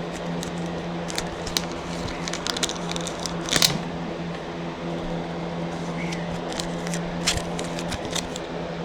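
Baseball trading cards being handled and flipped through, with scattered soft clicks and rustles, one louder snap about three and a half seconds in. A steady low hum runs underneath.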